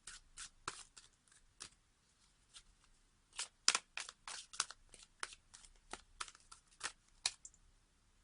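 Tarot cards being handled: a string of irregular light snaps and clicks, busiest in the middle of the stretch.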